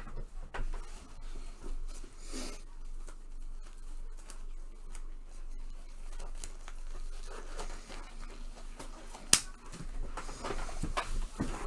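Close handling noises of packaging being torn and crinkled, with scattered light taps and clicks and one sharp click about nine seconds in.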